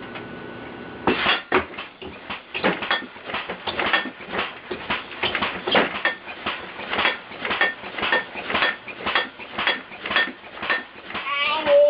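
Compressor-powered alarm bed starts about a second in and keeps clattering and banging, roughly three sharp knocks a second. Near the end there is a short wavering cry.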